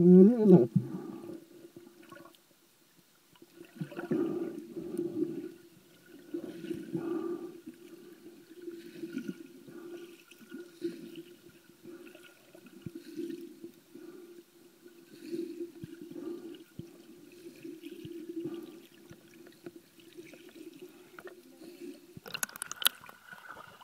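Muffled water sloshing and gurgling around a camera held underwater in shallow sea, swelling and fading every couple of seconds. Near the end there is louder, brighter rushing noise as skin brushes the lens.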